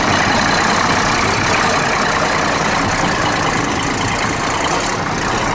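Case 600 tractor's big diesel engine running steadily close by.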